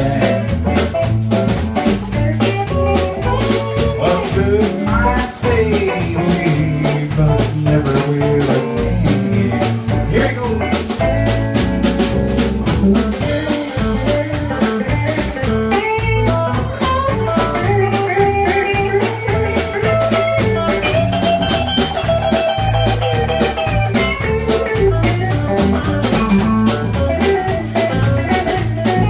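Live band playing a blues-rockabilly number: a Telecaster-style electric guitar plays a lead solo with bending notes over electric bass and a drum kit keeping a steady beat.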